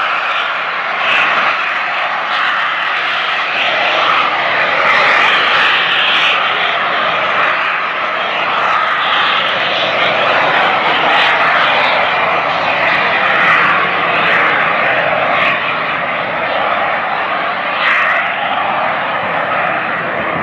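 Small turbojet engines of a SubSonex JSX-1 and a BD-5J microjet running at takeoff power during a formation takeoff roll: a loud, steady jet hiss that swells slightly a few times as they pass.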